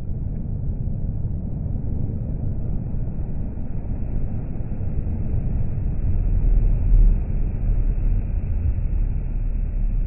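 Scania P420 XT eight-wheel tipper truck passing close by: a low rumble of its diesel engine and of its tyres on the wet road. It grows steadily louder, peaks about seven seconds in, then starts to fade.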